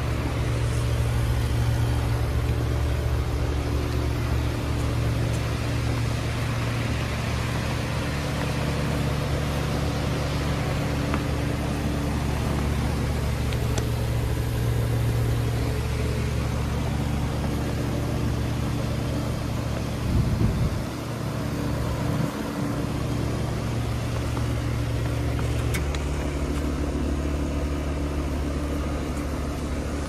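Heat pump outdoor units, a 1990 Carrier TECH 2000 and a 2019 Bryant Legacy Line, running through a defrost cycle: a steady compressor hum with low steady tones. A brief low rumble comes about two thirds of the way through, and one of the low tones drops away a little later.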